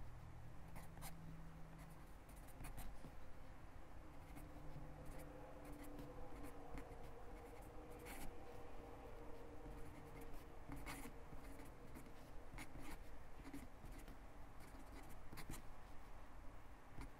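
Pen writing cursive on lined notebook paper: quiet scratching of the pen strokes, broken by short light clicks as the pen lifts and touches down.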